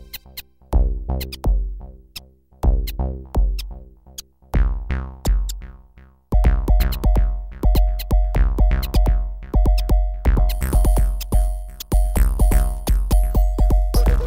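Electronic background music with a drum-machine beat and deep bass hits. The hits come in short groups with brief gaps at first, then about six seconds in the beat fills in to a steady driving pulse with a held synth tone over it.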